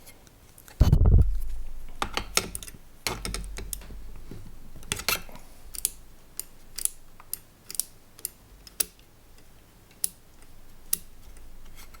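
Sharp, irregular clicks from the Yamaha CR-1000 receiver's front-panel rotary switches being worked by hand after the switch bracket was bent to make them click properly, with a loud low thump about a second in.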